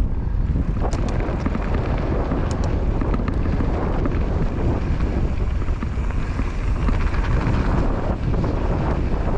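Wind buffeting the microphone during a fast mountain-bike descent, over the rolling rumble of knobby tyres on a dirt trail. A few short sharp ticks come about a second in and again around two and a half to three seconds in.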